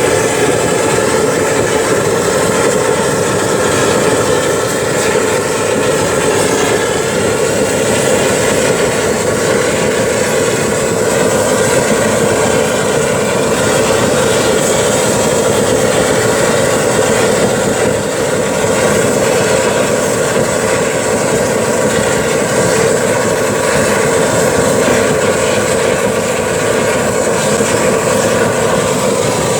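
Waste-oil burner firing a foundry furnace: a loud, steady, jet-engine-like roar of the atomised oil flame and its air blast, with a faint steady whine over it. The burner is really loud.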